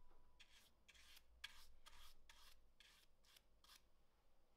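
Faint, quick strokes of a paintbrush brushing India ink onto bare pine wood, a dozen or so short brushing sounds that stop shortly before the end.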